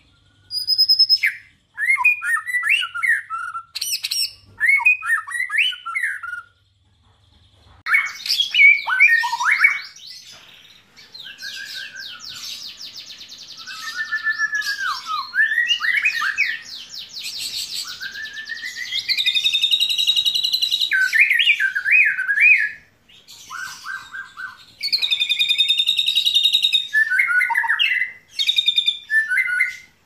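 White-rumped shama (murai batu) singing a long, varied song of whistled phrases, fast trills and rapid chattering runs, with a few short pauses. The song is filled with learned imitations (isian) of lovebird, canary and cililin calls.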